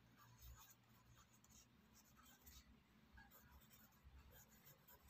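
Pencil writing by hand on a paper workbook page: faint scratching strokes of the lead on the paper.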